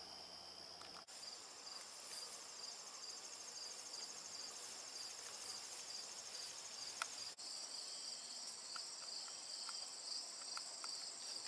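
Faint, steady chorus of insects trilling at a high pitch, two shrill pulsing tones going on together.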